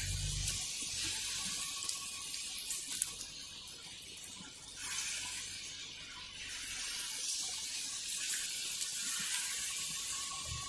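Buckwheat-flour (kuttu) batter pakodis sizzling as they deep-fry in hot mustard oil in an iron kadhai. The hiss is steady and swells about five seconds in, as more batter goes into the oil.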